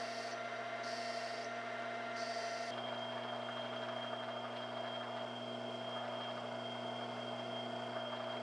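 Metal lathe running with a steady motor hum while a boring tool cuts inside the spinning part, giving bursts of hiss about once a second. About three seconds in, the sound changes to a drill in the tailstock chuck cutting into the centre of the turning part, with a thin steady high tone over the hum.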